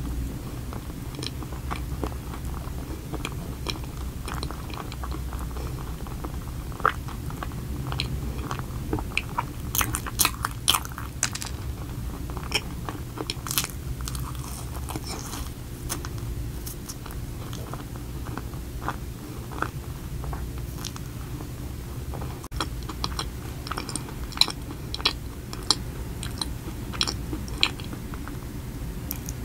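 Close-miked chewing and crunching of an Oreo-topped chocolate donut, with crisp crunches bunched about a third of the way in and again near the end. A steady low hum runs underneath.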